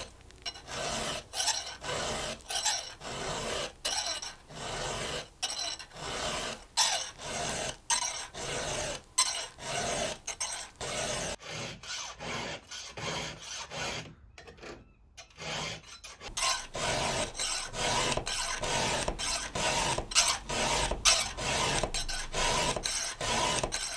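Round chainsaw file rasping across the steel cutter teeth of a chainsaw chain in quick, even strokes, about two a second, pushed forward to cut and dragged back lightly, with a short pause partway through.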